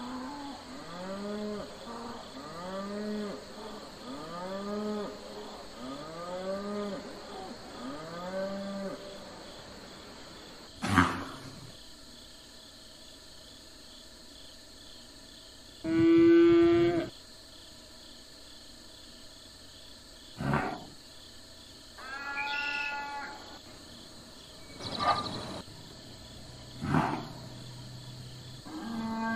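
Cattle mooing. A run of short calls, about one a second, each rising and falling in pitch, fills the first nine seconds. A single loud moo comes about sixteen seconds in, and several shorter calls and brief sharp sounds follow.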